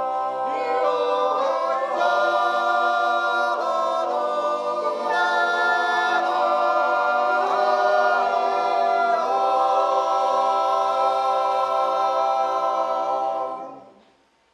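Swiss men's yodel choir singing a cappella in close harmony, with long held chords that shift every second or so. The last chord fades out about a second before the end.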